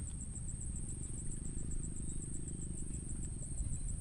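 Insects chirring in a high, steady trill with a fast, even pulse, over a low background rumble.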